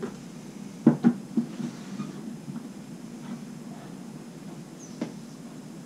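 Cardboard board-game box being closed and handled: its lid fitted on with a few quick knocks about a second in, and one more knock near the end.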